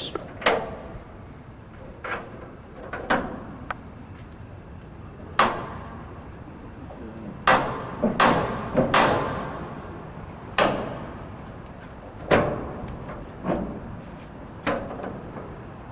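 Metal clanks and bangs from a shipping container's door locking bars and handles being worked open: about a dozen sharp knocks at uneven intervals, each ringing briefly, several in quick succession about halfway through.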